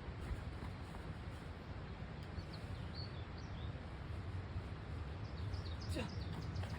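Small birds chirping in short, high calls, in two brief clusters: one a few seconds in and another near the end. Beneath them runs a steady low rumble of wind on the microphone.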